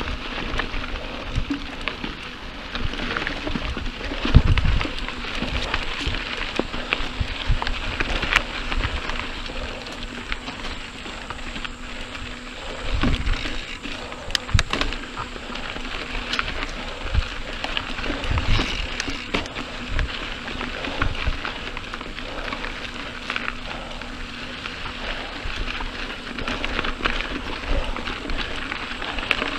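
Mountain bike rolling along a dirt singletrack: tyres crackling over dirt and gravel with many small clicks and rattles, and occasional low thumps.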